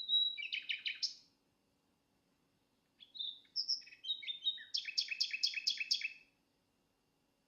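Songbird singing: a short run of high chirps, then after about two seconds of silence a longer phrase ending in a quick series of about eight chirps.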